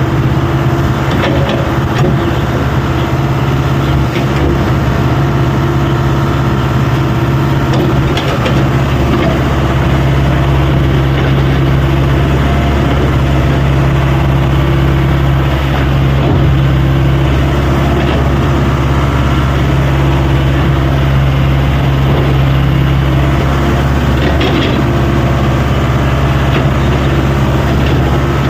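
Excavator engine running steadily under work, with a few short knocks along the way.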